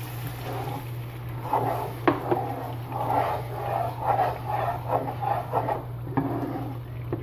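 Milk poured into a hot pan of fried walnut paste on high flame, bubbling and sizzling unevenly, with a sharp clink of the spoon about two seconds in.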